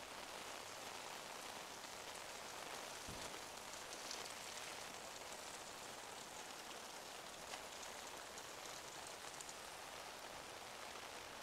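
Steady rain falling, with scattered drops tapping close by.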